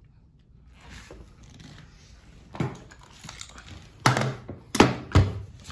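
Handling noise from the airsoft rifle on a wooden table: a few sharp knocks and clicks from about two and a half seconds in, the loudest three close together near the end.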